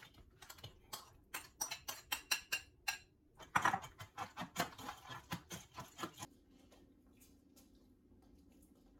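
Metal spoon clinking and scraping against a stainless steel bowl while scooping food out of it, a quick run of taps, several a second, that stops about six seconds in, leaving a faint steady room hum.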